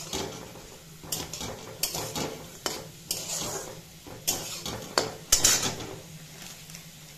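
Metal spatula scraping and clanking against a metal kadai, stirring diced potatoes sizzling in oil, about one or two strokes a second. The stirring stops about six seconds in, leaving only the frying and a low steady hum.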